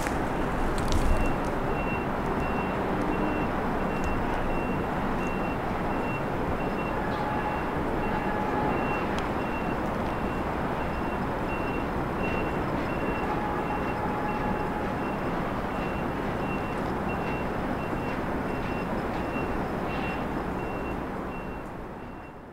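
A vehicle's reversing alarm beeping at an even rate, about two high beeps a second, over steady city traffic noise.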